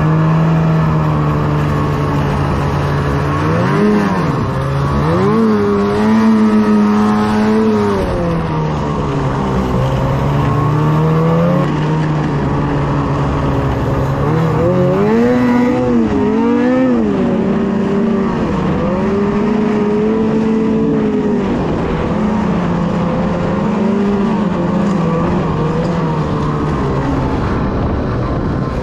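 Ski-Doo snowmobile engine running at speed, its pitch rising and falling as the throttle is opened and eased off, with sharp revs a few seconds in and again about halfway through.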